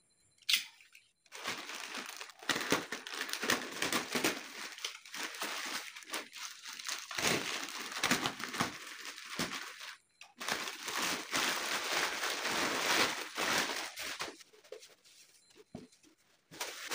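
Black plastic courier mailer bag crinkling and tearing as it is cut open and the bubble-wrapped box inside is pulled out, with a short pause about ten seconds in.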